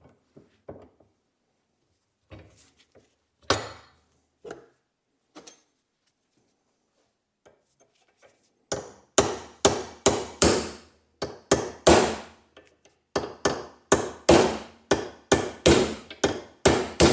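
Hammer striking a steel hinge bolt to drive it out of a Volvo 142 door hinge. A few light taps come first, then from about nine seconds in a steady run of hard blows, about two or three a second.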